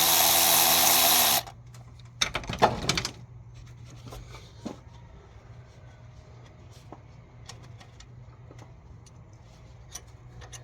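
A power drill spins a bolt for about a second and a half and cuts off suddenly, followed by a quick run of metal clinks from the bolt and socket being handled, then a few faint taps. The bolt is thought to be binding on trash in its threads.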